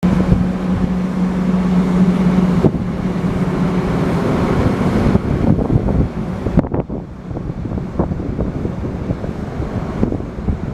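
Massey Ferguson combine harvester machinery running, with wind on the microphone. There is a steady hum at first, the sound changes abruptly a few times, and scattered knocks come in the second half.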